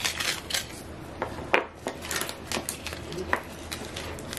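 Paper wrapping crinkling and crackling as hands pull a coiled braided charging cable free of it, with scattered sharp clicks; the loudest snap comes about one and a half seconds in and another near three and a half seconds.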